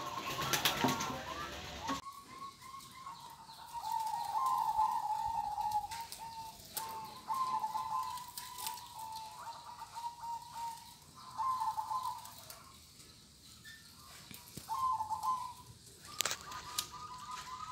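Zebra doves (perkutut) cooing: bout after bout of rapid, bubbling coo notes with short pauses between. There are a few sharp clicks, the clearest near the end.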